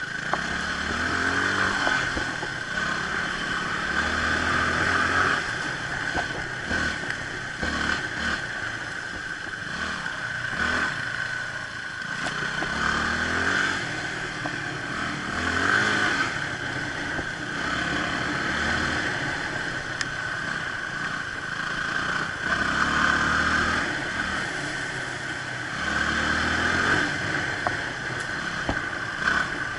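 Motorcycle engine ridden along a forest road, the pitch climbing in repeated sweeps as it accelerates and then dropping back, over and over, with a steady hiss of wind and road noise underneath.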